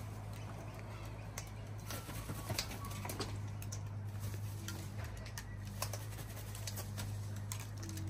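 Sulphur-crested cockatoos on a railing, with scattered light clicks and taps. Short, low cooing notes come a few times in the second half, over a steady low hum.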